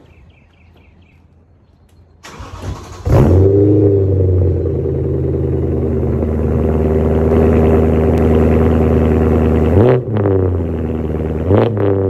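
Car engine cranked by the starter for about a second, catching with a rev flare, then settling to a steady idle, with two short throttle blips near the end.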